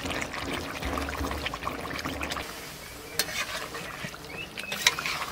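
Fish curry bubbling and sizzling in an iron kadai over a wood fire. A metal spatula stirs it and knocks sharply against the pan twice in the second half.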